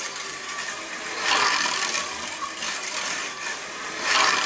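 A brass-chassis slot car running laps on a wooden banked track, its small electric motor and rubbing pickups giving a steady whirring rasp. The sound swells each time the car passes close, about a second in and again near the end, roughly once every three seconds.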